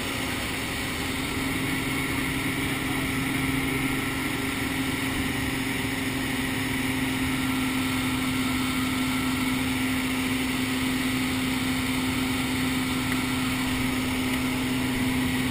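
Single-engine propeller plane's engine and propeller running steadily in flight, heard from inside the cabin as a constant hum over a wash of noise.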